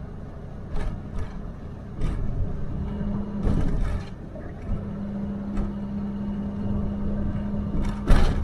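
Ford F-250 Super Duty pickup heard from inside the cab while driving: a steady low road and engine rumble, with a steady hum that comes in a few seconds in and scattered short knocks, the loudest near the end.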